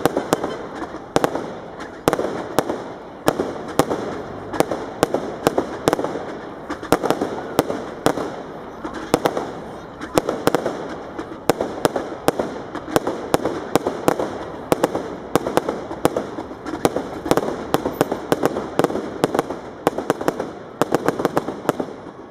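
Fireworks display: aerial shells and crackling effects bursting in a rapid, unbroken run of sharp bangs, several a second, over a steady din.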